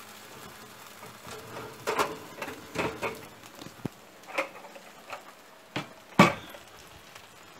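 A metal roasting pan being pulled from the oven on its wire rack, lifted out and set down on a tile trivet: a series of irregular clatters and knocks. The loudest knock comes about six seconds in as the pan lands.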